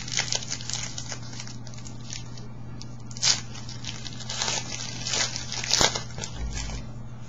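Trading-card pack wrappers being torn open and crinkled, and cards being handled: a run of short crackling rustles and rips, with the louder rips about three, four and a half, five and six seconds in. A steady low hum runs underneath.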